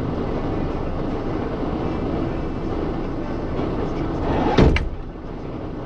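Vehicle engine idling steadily, then a single loud slam about four and a half seconds in, like a car panel being shut.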